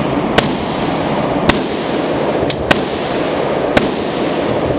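Gunshots: five sharp reports at uneven intervals, two in quick succession about two and a half seconds in, over a steady loud hiss.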